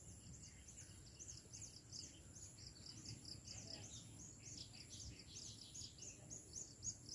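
Faint, high-pitched chirping from small animals: a rapid, continuous series of short chirps, about four a second, over a low background rumble.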